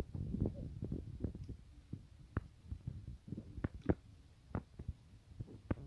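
Soft, irregular low thumps and rubbing with scattered small clicks, from a baby pressing its face against and mouthing a large plush toy while being held.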